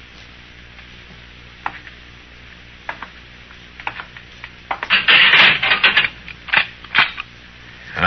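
Radio-drama sound effect of a jail cell door being shut and locked: a few scattered knocks, then a loud metallic clatter lasting about a second, then two sharp clicks near the end.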